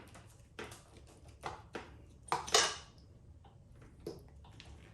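About half a dozen short, sharp clicks and clinks of small hard parts being handled, the loudest about two and a half seconds in, as the Kawasaki ZX7R's fuse box is opened and its fuses are checked.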